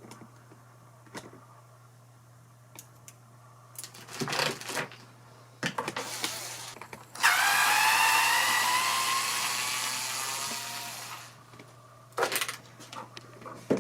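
A few handling knocks, then an electric drill runs for about four seconds, its whine slowly dropping in pitch before it stops, followed by a couple more knocks.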